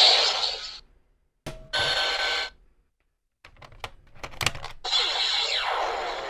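Electronic sound effects from the DX Kamen Rider ZEZTZ driver toy: short bursts of chiming, ringtone-like synthesized sound separated by dead silent gaps. A cluster of sharp clicks comes in the middle, and after it a longer passage of tones sweeping downward fades out near the end.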